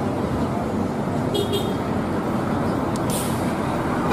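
Large buses passing on a busy road, their engines and tyres making a steady traffic rumble. A brief high tone sounds about a second and a half in, and a short hiss about three seconds in.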